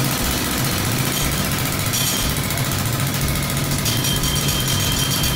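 Pneumatic rock drill on a column mount, running continuously and very loud.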